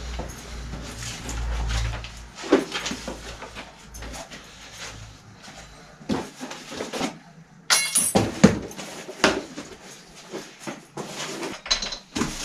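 Irregular knocks, clinks and rustling of bicycle parts and packaging being handled at a workbench, with a sharper, louder noise about eight seconds in.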